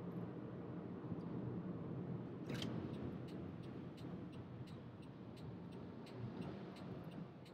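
Car's turn-signal indicator ticking at about three ticks a second, starting with a sharper click a little past two seconds in, over the low rumble of the car driving, heard inside the cabin.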